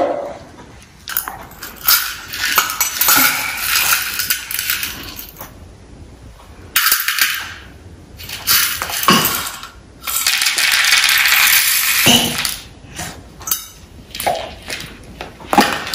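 Plastic toy dishes and small stainless steel bowls clattering as a toddler handles and knocks them about, with dry grains rattling and scattering. The sound comes as irregular clicks and knocks, with longer rustling stretches.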